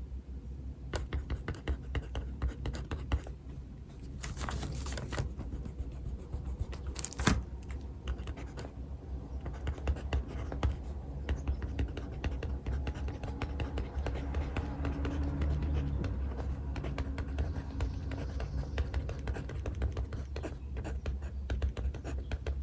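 Pen writing on paper: a continuous run of quick scratching strokes and small taps, with a louder rustle about four seconds in and a single sharp tap a little after seven seconds.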